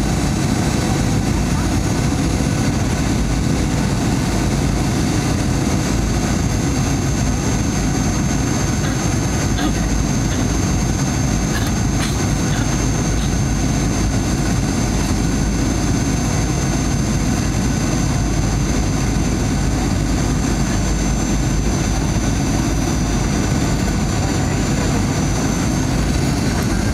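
Steady cabin noise inside a Boeing 737-900ER descending on approach: the rush of airflow and the drone of its CFM56-7B turbofan engines, with a thin, steady high whine over the top.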